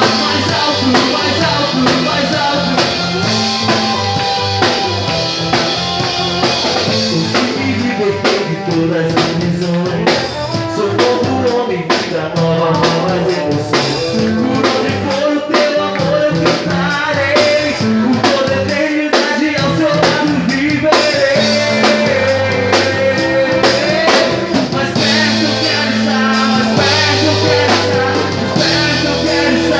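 A band playing: drum kit, bass and electric guitar, with a melody line over them.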